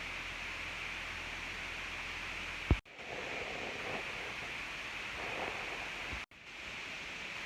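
Steady hiss with a faint low hum underneath. About three seconds in a sharp thump is followed by the sound cutting out for a moment, and it cuts out briefly again about six seconds in.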